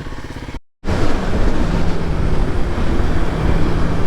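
2021 Kawasaki KLX300's single-cylinder engine running at a steady speed under heavy wind rush on a helmet microphone. The sound cuts out completely for a moment just over half a second in, then comes back louder.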